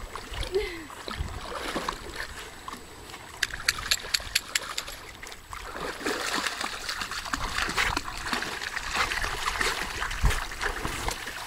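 Lake water splashing and trickling as a dog moves through it, with a cluster of sharper splashes around the middle and steadier splashing later. A short dog whine is heard about half a second in.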